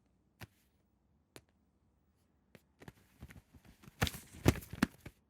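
A few sharp, scattered clicks and knocks, about a second apart at first, then a denser, louder cluster of knocks about four seconds in.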